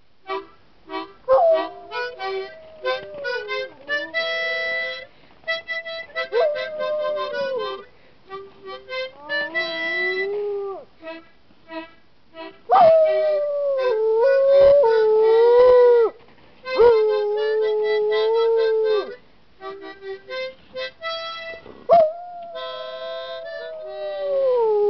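Alaskan Malamute howling along to a harmonica: bursts of short harmonica notes and chords trade off with the dog's long, wavering howls that slide down in pitch. The longest and loudest howls come about halfway through.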